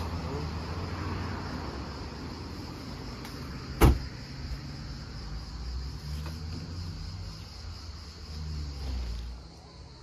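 A car's rear hatch slammed shut once, a single sharp bang about four seconds in, over a steady low rumble.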